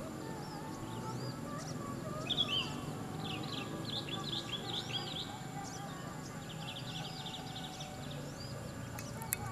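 Small birds chirping in quick high twitters, busiest a few seconds in and again briefly later, over a steady background hum, with one sharp click near the end.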